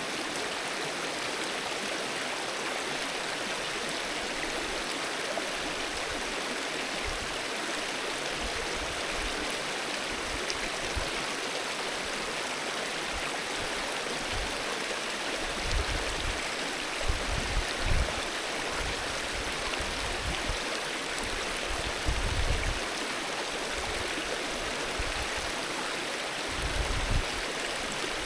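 Alpine mountain river rushing steadily over its bed, a constant even wash of flowing water. A few brief low rumbles break in over the second half.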